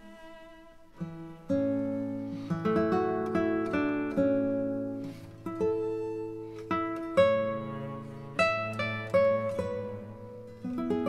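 Background music on a plucked string instrument: notes and chords struck about once a second, each ringing and fading.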